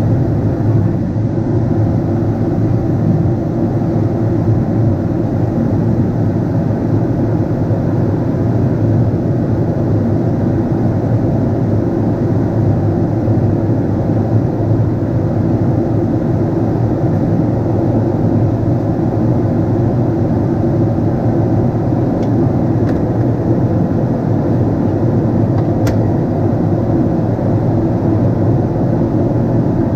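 Steady cabin noise of a Boeing 777-300ER heard from a window seat: the drone of its GE90 engines and rushing air, unchanging and without breaks.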